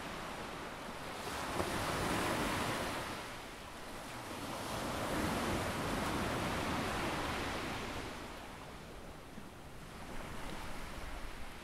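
Ocean surf washing onto the beach in slow swells: one wave surges about a second and a half in, a longer one follows around five seconds, and it eases off before the next begins building near the end.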